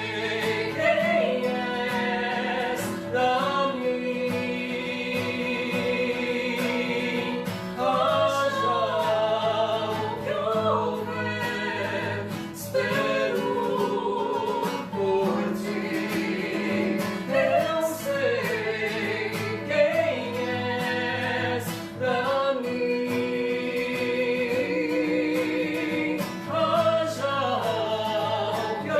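Live singing of a slow song: a voice holding long notes with strong vibrato over a steady acoustic guitar accompaniment.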